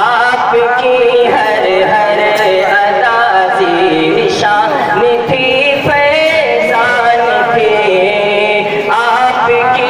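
A man singing an Urdu nazm, a devotional poem, solo into a microphone, his voice sliding and wavering through long ornamented phrases with short breaths between them.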